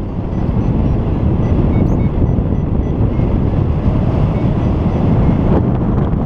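Airflow buffeting the camera microphone during paraglider flight, a steady loud wind rumble. Under it come faint short beeps, a few a second, most likely from a flight variometer signalling lift.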